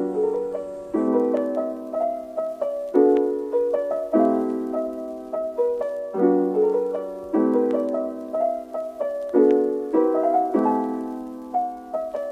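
Background piano music: a gentle melody over chords, a new chord struck about every second.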